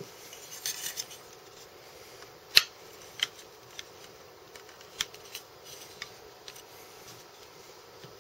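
Metal clamp handling on a fletching jig: a short scrape, then a sharp click about two and a half seconds in as the aluminium Bitz Dial-O-Fletch helical clamp seats on the Aerovane jig, followed by a few fainter ticks.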